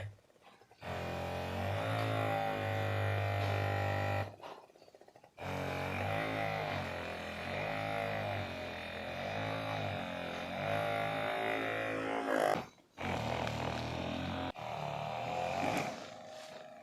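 Background music: sustained low droning notes with a wavering melody above them, breaking off briefly three times.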